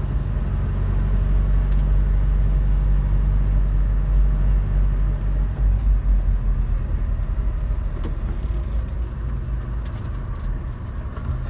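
Car cabin noise while driving in heavy rain: a steady low rumble of engine and road with the hiss of rain and wet tyres, easing slightly near the end, with a few faint ticks.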